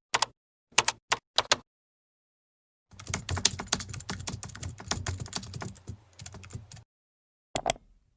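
Computer keyboard typing: a dense, rapid run of key clicks lasting about four seconds, preceded by a few single clicks in the first second and a half and followed by a quick double click near the end.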